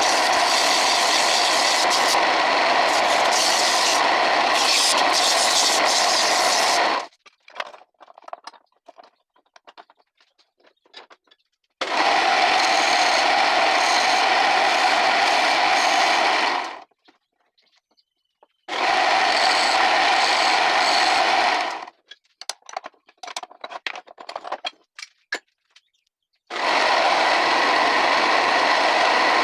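Homemade wood lathe running with steady whirring and scraping, in four stretches. Between them it stops and there are only faint light clicks and taps.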